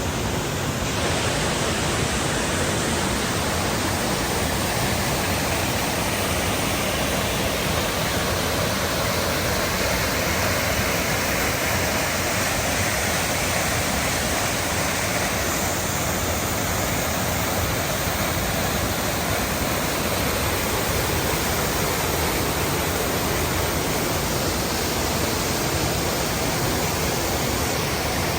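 The Cascada del Estrecho, a waterfall on the mountain river Arazas, pouring steadily: a continuous, even rush of falling water.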